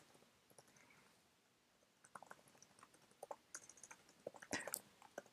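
Computer keyboard being typed on: faint, irregular key clicks, starting about two seconds in and a little louder near the end.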